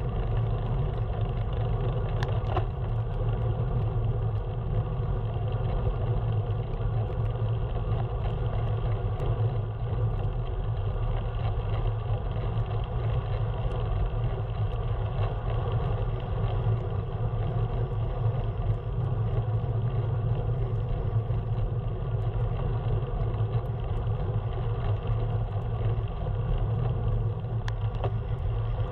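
Steady low rumble of a moving vehicle, road and running noise at an even level, with a few faint clicks.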